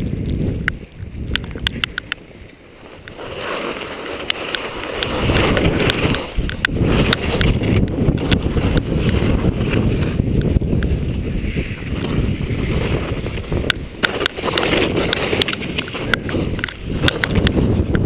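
Skis sliding and scraping over snow on a downhill run, with wind rumbling on the microphone and scattered sharp clicks. The sound drops away briefly soon after the start, then builds back up and stays steady.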